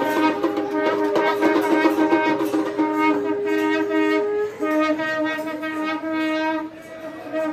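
Conch shell (shankh) blown in long held notes to herald the aarti. A higher note is held for about the first four and a half seconds, while a lower note breaks off and resumes a few times.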